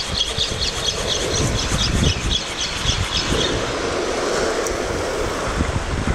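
Spinning reel being cranked on a jigging rod: a rapid high ticking, about four a second, that stops a little after three seconds in. Steady wind on the microphone and surf run underneath.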